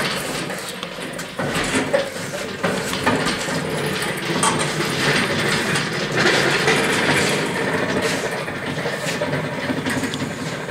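Engine hoist with a heavy lathe and steel cabinet slung from it, rolling on its steel casters across a concrete floor: a continuous rumble with scattered knocks and rattles.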